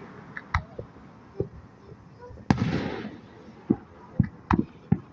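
Fireworks display: one loud bang about halfway through with a trailing rumble, and a scatter of smaller pops, several in quick succession near the end.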